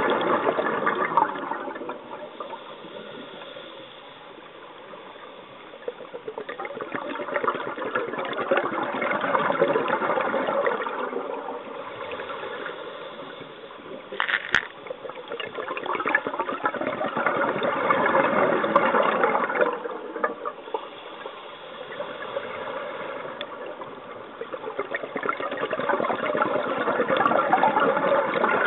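Scuba regulator exhaust bubbles gurgling out as a diver exhales, heard underwater: long swells that rise and fade about every eight or nine seconds, with quieter stretches between breaths. A single sharp click about halfway through.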